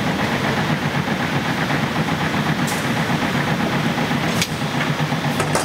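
Twin-head bottle filling machine and its conveyor running: a steady, dense mechanical hum with a few sharp clicks, the clearest about four and a half seconds in.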